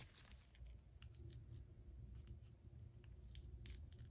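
Near silence with a few faint, short clicks and scrapes spread through it: small metal handling noises as gloved hands turn a 3/8-inch drive ratchet and bring a pick to its head.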